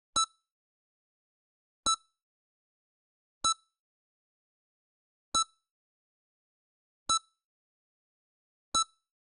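EKG heart monitor beeping, one short beep per heartbeat: six identical beeps about 1.7 seconds apart, slightly uneven, with silence between them.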